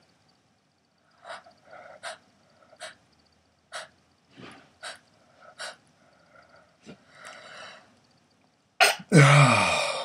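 A man doing a comic, performed sneeze routine: several short, faint breathy bursts, then a loud drawn-out vocal sneeze whose pitch falls, near the end.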